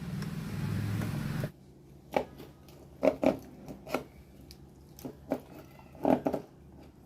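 Work on electrical wiring by hand: a steady rushing noise with a low hum that cuts off suddenly about a second and a half in, then a string of irregular sharp clicks and snaps from tools and cable being handled.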